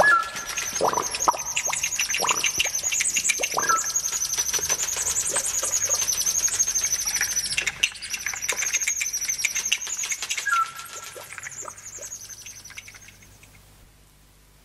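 Recorded birdsong: many small birds chirping in a dense, rapid chorus, with a few lower single calls, fading out over the last few seconds.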